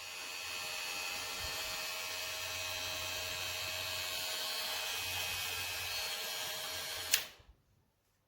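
GLAKER cordless hair clipper running steadily at an even pitch, then switched off with a click about seven seconds in.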